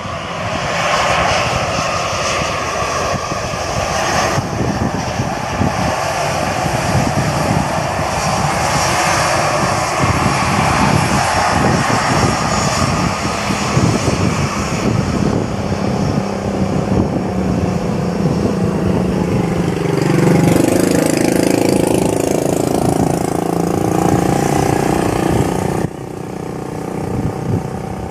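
Jet engines of an Airbus A320-214 rolling along the runway after landing: a loud, steady rumble and hiss whose high hiss thins out in the second half. A lower engine note with a slowly rising pitch comes in about two-thirds of the way through, and the level drops suddenly a couple of seconds before the end.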